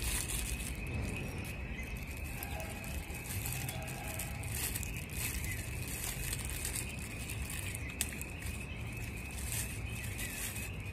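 Plastic wrapping rustling and crinkling as it is handled on a rubber hose, with a single sharp click about eight seconds in. Underneath runs a steady low rumble and a thin, constant high whine.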